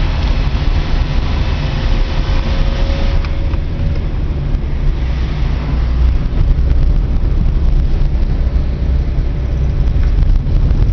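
Car driving, heard from inside the cabin: a steady low engine and road rumble, with a higher hiss that drops away about three seconds in.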